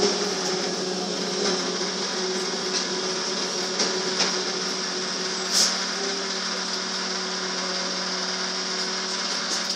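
Interior of a Škoda 15Tr articulated trolleybus under way: a steady electric motor hum over road and cabin noise, with a few light rattles, the clearest about halfway through.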